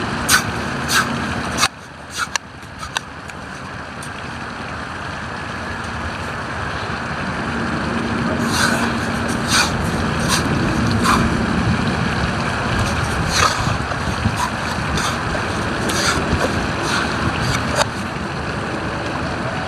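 Digging into a worm's hole in wet beach sand: short, sharp knocks and scrapes at irregular intervals, about a dozen in all, over steady wind and surf noise.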